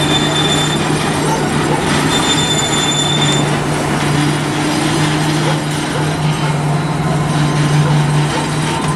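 Freight train of tank cars rolling slowly past with a steady rumble of wheels on rail and a low drone. Short high-pitched wheel squeals come near the start and again about two to three seconds in.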